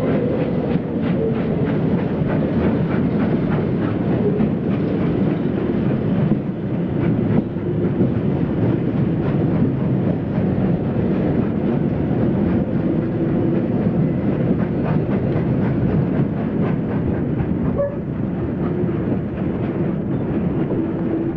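Steam-hauled passenger train running, heard from a coach window: steady rolling noise with wheels clicking over rail joints and points, the clicks thickest in the first few seconds.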